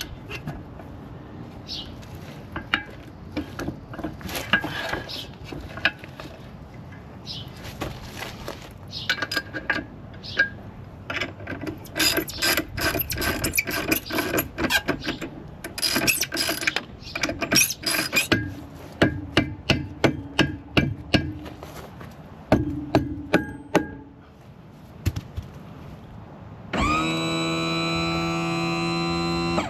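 Metal knocks and clanks as the outdrive's tilt cylinders are fitted back on, many sharp strikes in a row. About 27 seconds in, the power trim/tilt pump motor starts with a loud steady hum, raising the outdrive.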